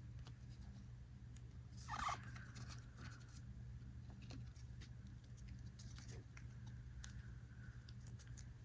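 Faint handling of trading cards and booster-pack foil: small scattered clicks and a brief swish about two seconds in, over a low steady hum.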